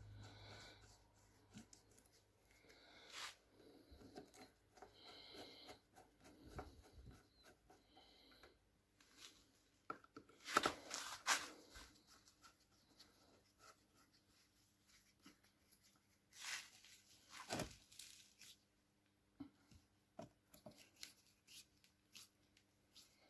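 Faint handling noises of hand work on engine parts: scattered small clicks, scrapes and rustles, with a few louder short scraping sounds about ten to twelve seconds in and again around seventeen seconds in.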